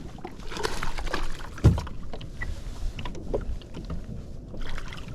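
Splashing and knocking around a bass boat while a hooked bass is landed, with a sharp thump about one and a half seconds in.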